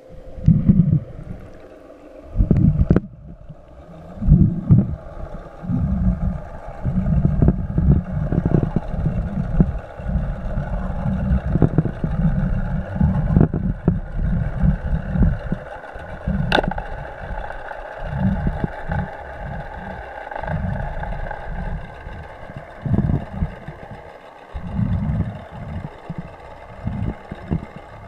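A motorboat's engine heard from underwater as a steady hum, under irregular low rumbles of water churning close by, with one sharp click about two-thirds of the way through.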